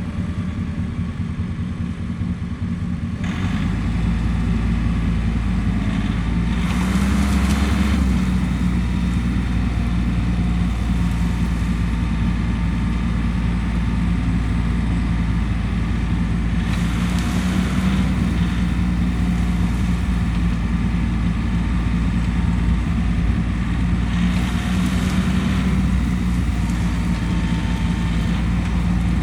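A vehicle engine running steadily, growing louder about three seconds in, with three brief surges of louder, rougher noise spread through the stretch.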